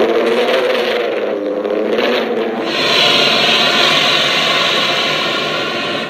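Tyrannosaurus rex roar sound effect, designed from layered animal sounds: one long roar that gets brighter and a little louder about three seconds in, then cuts off suddenly.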